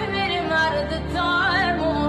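Music with a singing voice: a wavering melodic line over held low notes.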